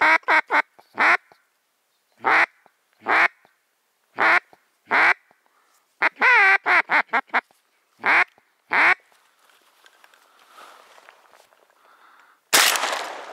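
A series of loud duck quacks, mostly single, with one longer wavering call about six seconds in, then a single shotgun shot near the end that echoes away.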